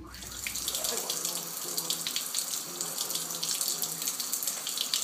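Kitchen faucet running, a thin stream of water splashing into the sink with a steady hiss.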